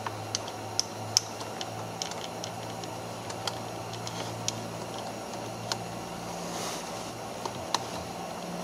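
Irregular light clicks and taps of a 10 mm socket being turned by hand on the steering-wheel airbag's retaining bolt, over a steady low hum.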